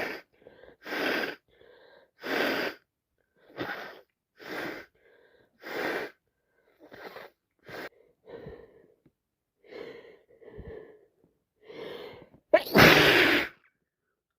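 A woman's congested, wheezy breathing, a run of short heavy gasps about one a second, builds up to one loud wet sneeze near the end; her head cold has turned into sinusitis.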